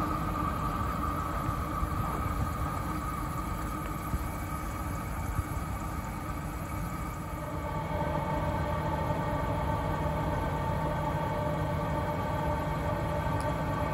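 GMC Sierra pickup's engine idling steadily after a cold start, with wind buffeting the microphone. About halfway through, a steadier, higher hum joins in.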